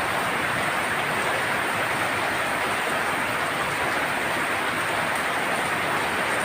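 Heavy rain falling on a tin roof: a steady, even patter with no let-up.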